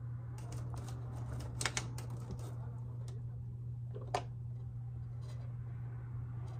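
A few small clicks and rustles of makeup being handled during lip lining, over a steady low hum.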